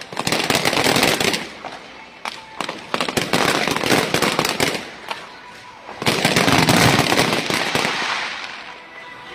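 Fireworks going off in dense volleys, a rapid run of sharp pops and crackles. They come in three waves, about the first second and a half, from about two and a half to five seconds, and from six to eight seconds in, with lighter crackling between.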